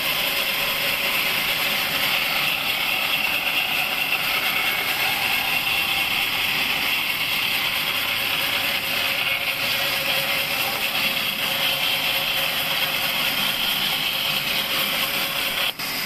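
Large vertical band saw ripping a pine beam lengthwise: a steady hiss of the blade cutting through the wood over the running machine. It drops out for an instant near the end.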